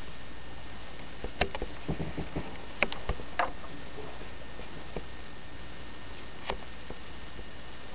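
HO scale model of an SW9 switcher locomotive running slowly along the track: a steady low hiss with scattered sharp clicks and ticks, mostly in the first half.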